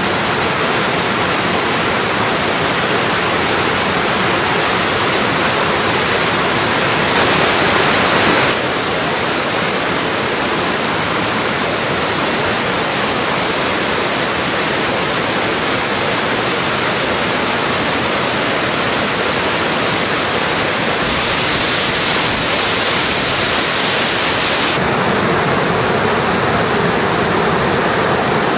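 A tall waterfall swollen by heavy rain, with a loud, steady rush of falling water. Its tone shifts suddenly a few times.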